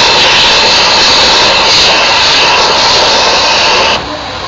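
Plush-toy stuffing machine blowing stuffing through its nozzle into a stuffed dog: a loud, steady rush of air that cuts off suddenly about four seconds in.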